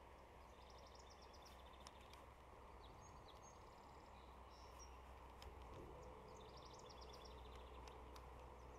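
Faint birdsong over a low steady hiss: a songbird's rapid high trill about half a second in and again near the end, with a few short whistled notes in between.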